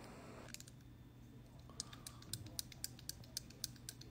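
Faint run of small, light clicks and taps, about three or four a second, from hand handling close to the phone's microphone, over a low steady hum.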